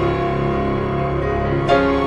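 Slow, gentle instrumental background music with held notes; a new chord comes in near the end.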